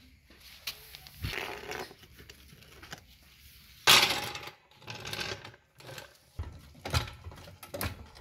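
Hydraulic floor jack being wheeled across a concrete floor and set under the car's sill: several scrapes and metal clatters, the loudest a sharp clank about four seconds in.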